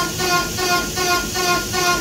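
PrintNC CNC router's axis motors running a high-speed rapids test, the machine shuttling through quick short moves. It makes a whine of several tones that pulses evenly about four times a second.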